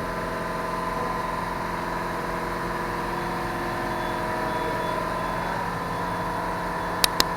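A steady, idling engine-like hum with even tones that stay level throughout, and two sharp clicks close together near the end.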